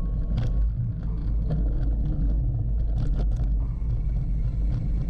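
Cyclocross bike being ridden over a dirt race course: a steady low rumble of tyres and riding noise, with scattered sharp rattling clicks.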